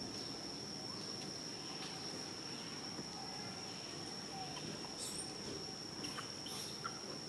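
Steady high-pitched insect drone over low background noise, with a few faint short chirps about five to seven seconds in.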